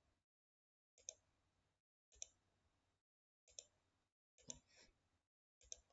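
Faint computer mouse clicks, five of them roughly a second apart.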